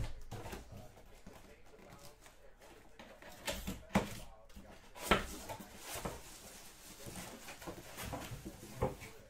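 Cardboard helmet box being handled and opened by hand: rubbing and scraping of cardboard with a handful of sharp knocks as the box is set down and tipped on the table.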